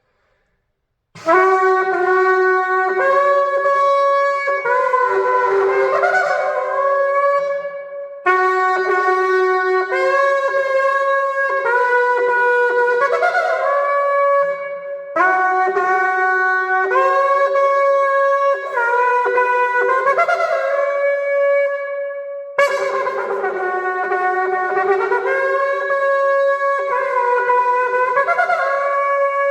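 Shofar blown in four long phrases after about a second of silence, each phrase stepping up and down between several sustained notes.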